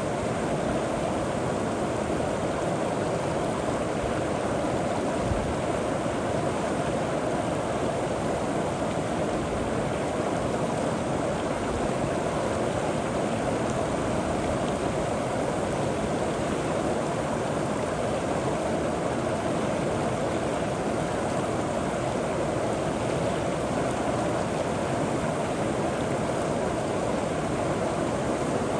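River water flowing steadily over rocks, an even rushing noise with no breaks.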